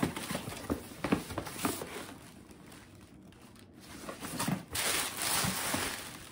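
Cardboard box and packaging rustling and crinkling as a shipping box is opened and its contents lifted out: scattered taps and rustles at first, then a longer, louder stretch of crinkling near the end.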